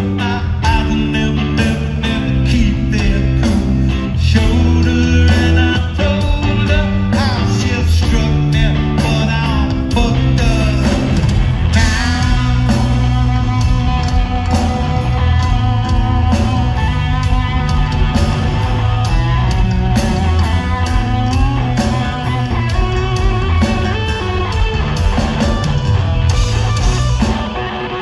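Live rock band playing loud through an arena PA, with electric guitar, bass and drums keeping a steady beat.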